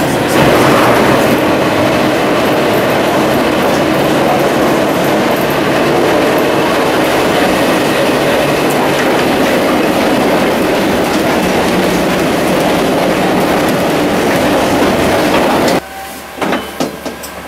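A Gotha tram car running along the rails, heard from inside: steady, loud rolling noise of the wheels and running gear. About sixteen seconds in it cuts off suddenly, leaving quieter scattered clicks.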